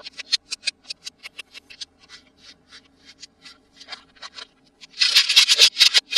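Hands handling toy packaging: a quick run of small clicks and crackles, then about five seconds in a spell of loud, dense crinkling.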